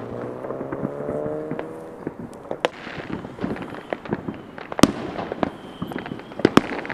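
Neighbourhood fireworks going off in the distance: scattered sharp pops and bangs, the loudest about five seconds in and again near the end. A steady low tone sounds through the first two seconds.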